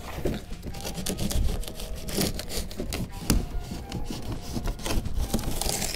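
A large corrugated cardboard box being cut open along its side with a blade: irregular scraping and crunching of the cardboard.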